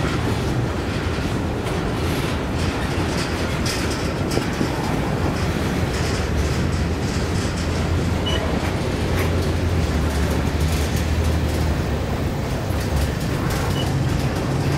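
Last cars of a long freight train, covered hoppers, rolling slowly past: a steady low rumble of steel wheels on rail with scattered clicks and clanks.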